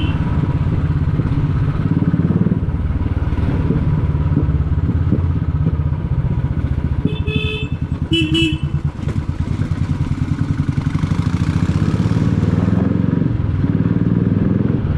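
Royal Enfield single-cylinder motorcycle running at low speed, its exhaust beating in a steady, even thump. Two short horn beeps sound a little past halfway.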